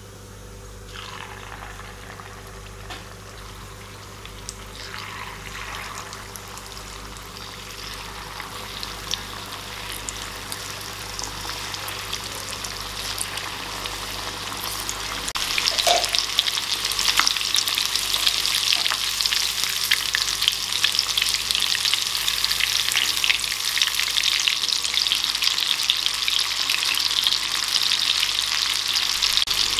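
Marinated chicken pieces deep-frying in hot oil in an iron kadai, sizzling and crackling. The sizzle starts faint and builds, becoming loud and dense about halfway through. Near the end the pieces are stirred with a wire skimmer.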